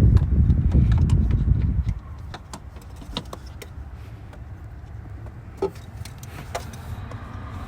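A low rumble for about the first two seconds, then scattered sharp metallic clicks and knocks from hand-working a tight fuel filter loose on a 6.7 Cummins diesel.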